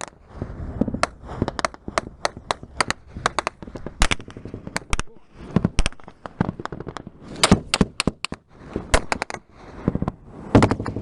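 Small-arms gunfire in a firefight: a steady run of irregular shots, with quicker rapid bursts about two thirds of the way through and again near the end.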